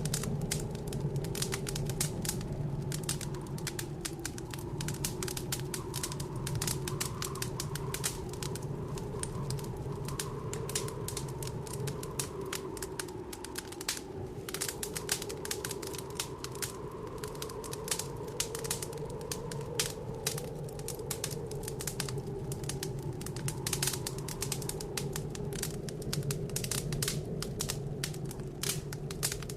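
Wood fire crackling in a fireplace with many quick, irregular pops and snaps, over the steady low howl of blizzard wind that slowly swells and eases.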